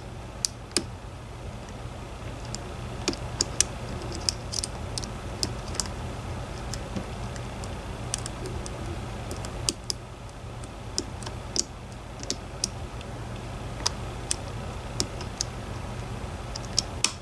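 Irregular light metallic clicks and ticks of a dimple pick and tension tool working the pins of a DOM IX 10 dimple lock cylinder, over a steady low hum.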